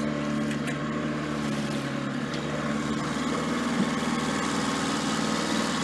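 A boat's engine running steadily as it motors through choppy water, with a constant hiss of water and wind; the engine note shifts slightly a couple of seconds in.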